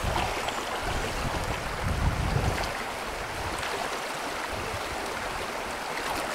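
Steady rush of a shallow creek running over rocks, with low wind rumble on the microphone, strongest about two seconds in.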